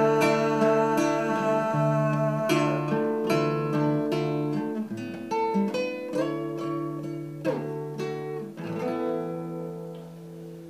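Nylon-string classical guitar played fingerstyle: a slow passage of plucked single notes and chords, ending on a chord left to ring and fade away.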